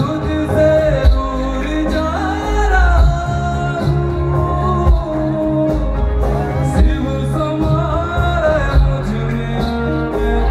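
Live devotional bhajan: a male singer's voice over a loud amplified band, with electric bass, tabla and keyboard, heavy in the bass with steady drum hits, heard from in the audience through the PA.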